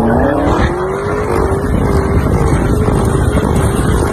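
Car engine revving up over about the first second, then held at high revs with its pitch wavering, over loud rumbling noise.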